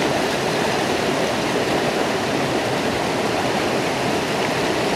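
Creek water rushing steadily down a small waterfall and a bedrock slide, running high after heavy rain.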